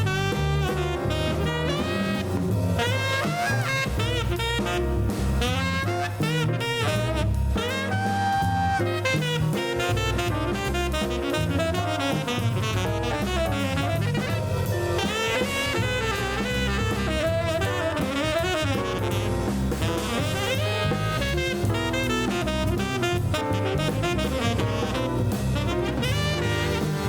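Background music: upbeat jazz with saxophone lead, brass and a drum kit.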